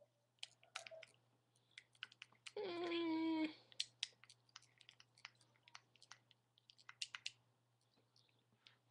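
Light, irregular clicks and taps of a small tool against a cosmetics jar while cream and concealer are scooped and mixed. About two and a half seconds in, one drawn-out call lasting about a second, dipping slightly in pitch at its start and then holding steady; it is the loudest sound here.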